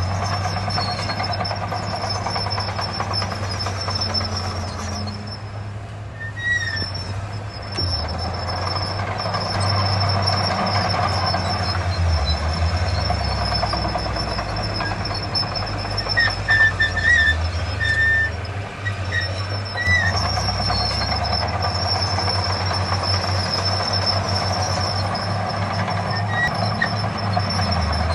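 Heavy diesel earthmoving machinery running with a steady low drone that swells and eases, under a constant high whine. A few short squeals come about two thirds of the way through.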